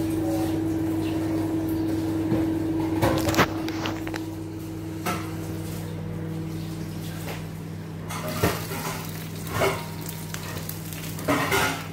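Kitchen sounds: a steady low appliance hum that shifts to a lower note a few seconds in, with scattered clinks and knocks of cookware, including a glass lid being lifted off a pot near the end.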